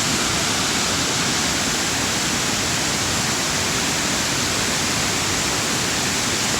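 Waterfall rushing steadily, a loud even roar of falling water.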